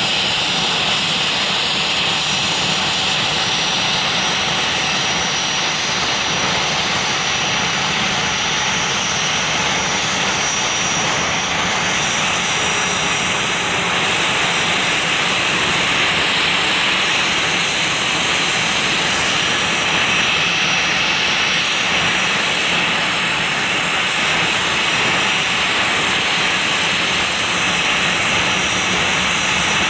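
Airbus A321's twin jet engines running at taxi power as the airliner rolls by. A steady jet noise with a thin, high, constant whine above it.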